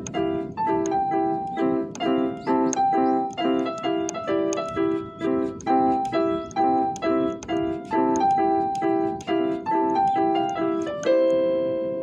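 PCM synthesizer keyboard playing a piano-like patch: a steady pulse of repeated chords, about three a second, with a melody on top, closing on a long held chord near the end that fades away.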